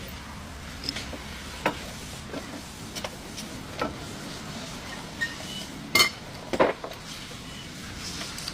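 Metal tools and parts clinking and knocking at irregular intervals, some with a short ring; the loudest two knocks come about six seconds in. A low steady hum runs underneath.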